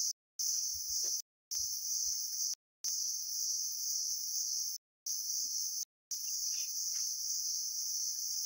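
Steady high-pitched buzzing of a chorus of forest insects. The sound cuts out completely for a moment about five times.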